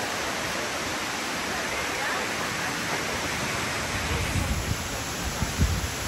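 Steady rushing of waterfalls, with a few low bumps near the end.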